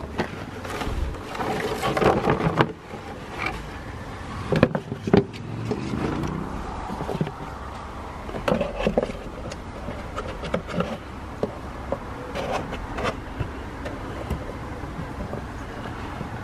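Handling noises from fitting a new paper air filter element into the VW Up!'s plastic airbox: scraping and rustling with irregular plastic clicks and knocks, the sharpest about four and a half to five seconds in.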